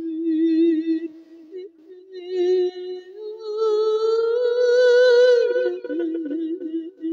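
A monk chanting an Isan verse sermon (thet klon) in a drawn-out sung melody of long held notes with vibrato. The pitch climbs to a long, loud note about four seconds in, then drops back.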